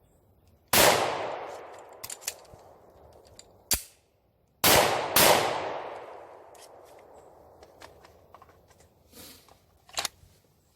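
Handgun shots, each with a long fading echo: one shot a little under a second in, then two more close together about five seconds in. Smaller clicks and knocks fall between them.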